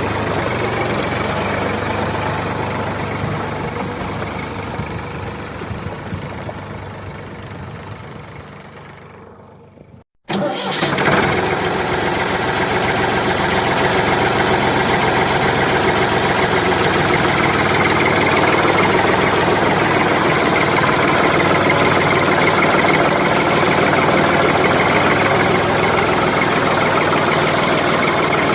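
Tractor engine running steadily and fading out over about ten seconds, then a brief silence. A tractor engine comes back in suddenly and runs steadily again, a little louder.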